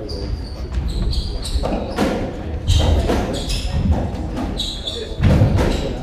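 Racketball rally on a squash court: the ball struck by racquets and smacking off the walls about once a second, with short squeaks of court shoes on the wooden floor between hits.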